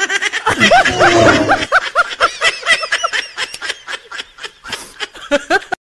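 A person laughing in quick, high-pitched repeated bursts that trail off, with a couple of last bursts near the end.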